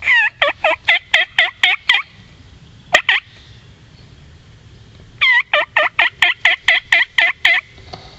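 Wild turkey yelping: a run of about eight sharp, loud yelps, a pair of yelps about three seconds in, then another run of about ten.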